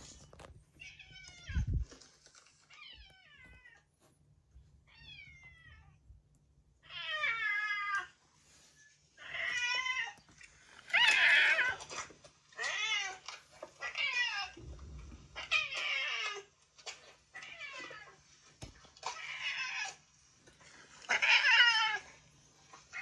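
A cat yowling a harsh, bird-like 'fugyaa' again and again, about a dozen wavering calls, faint at first and incredibly noisy from about seven seconds in.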